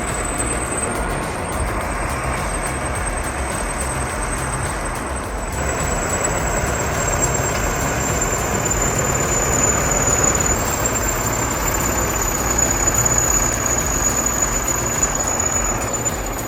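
A heavy machine's diesel engine running steadily, with a thin high-pitched whine above it.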